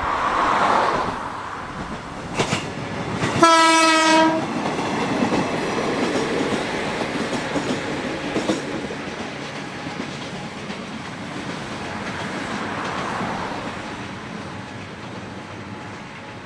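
JR 103 series electric train sounding its horn once, a single held note of about a second, a few seconds in, as it passes close by. Its wheels and motors then run along the rails with a few sharp clicks, the noise slowly fading as the train moves away.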